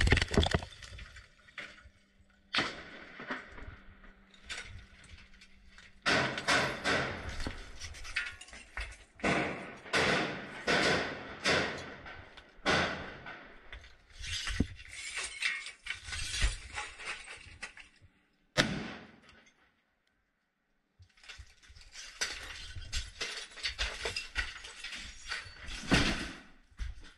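Gunfire and crashes inside a room: irregular bursts of sharp bangs with a short ringing tail, mixed with glass shattering and debris clattering. There is a dead silence for about two seconds roughly two-thirds of the way through.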